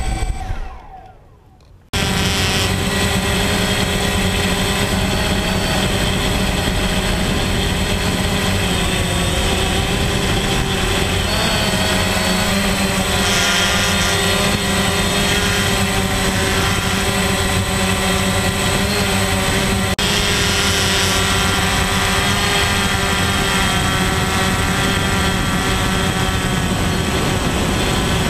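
DJI Phantom quadcopter's four electric motors and propellers, heard from the camera on board. The falling hum dies away in the first second or so, then the steady high-pitched whine comes back abruptly about two seconds in and holds through the flight.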